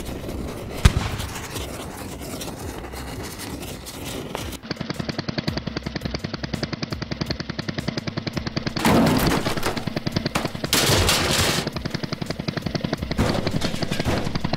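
Cartoon sound effects: crackling fire with one sharp bang about a second in. From about four and a half seconds this gives way to a toy tractor's engine sound, a fast even putter of about ten pulses a second, with two louder noisy bursts in the middle.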